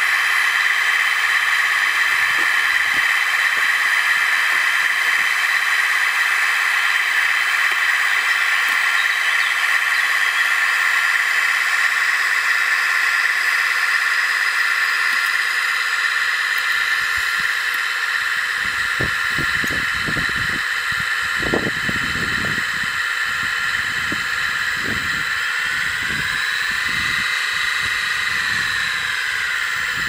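RC model tractor running under load, a steady high mechanical whine with many overtones; its pitch rises and falls again near the end. From about two thirds of the way in, uneven low rumbles and knocks join it.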